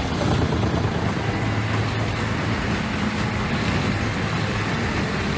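Doppstadt mobile wood chipper running under load while chipping logs, a loud, steady machine noise with a constant low hum.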